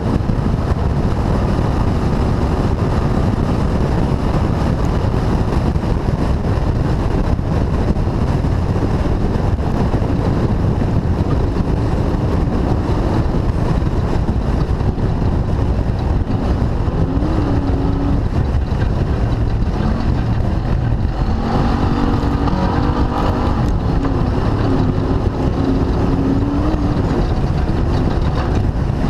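Off-road race car driving hard, heard from on board: constant heavy engine and driving noise, with the engine note wavering up and down in pitch in the second half.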